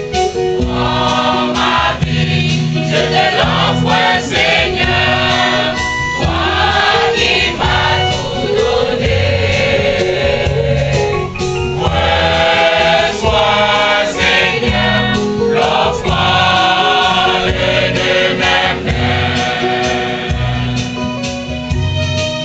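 Mixed church choir of men and women singing a hymn, with instrumental accompaniment carrying held bass notes and a steady beat.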